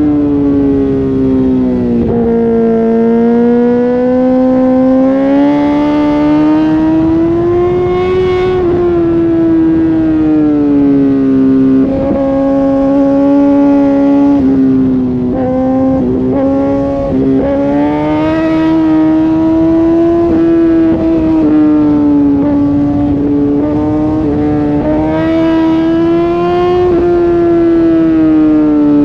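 Inline-four sport motorcycle engine held at high revs at speed, its pitch rising and falling slowly as the throttle is worked. The revs sag briefly a few times as the throttle is rolled off or the bike is shifted, over a steady rush of wind.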